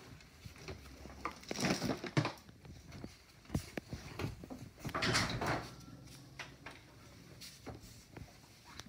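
Handling noises: rustling and scraping with scattered knocks and clicks, loudest about two seconds in and again about five seconds in.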